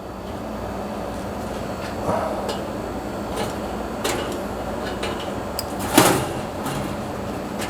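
Light metal clicks and scrapes of a tool working the sheet-metal retaining tabs on a dryer heating element, with a sharper clank about six seconds in, over a steady low hum.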